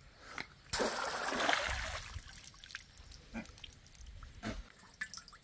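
Water splashing: a sudden splash about a second in that trickles away over a second or so, followed by a few faint light clicks.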